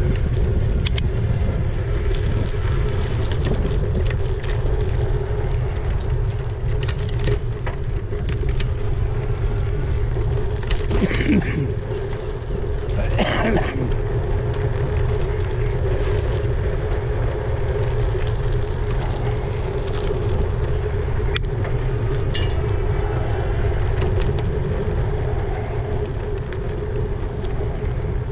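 Ride noise from an e-bike on the move: wind rumble on the microphone and road noise with a steady hum throughout, plus two short pitched sounds near the middle.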